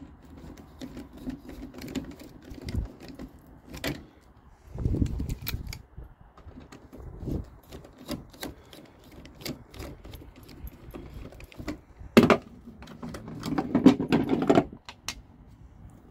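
Screwdriver backing T25 Torx screws out of a pickup's tail-light mount: a run of small quick clicks and metallic clinks, with louder handling noise about five seconds in and again near the end.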